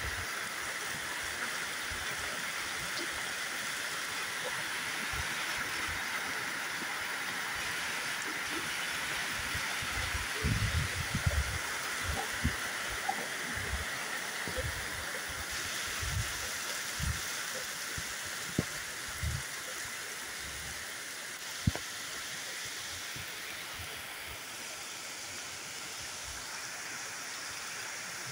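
Heavy rain falling steadily, an even hiss throughout, with scattered close thuds through the middle stretch and one sharp tap a little past two-thirds of the way in.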